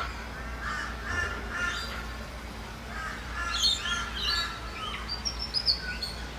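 Birds calling: a run of repeated harsh calls, joined in the second half by quicker, higher chirps from smaller birds.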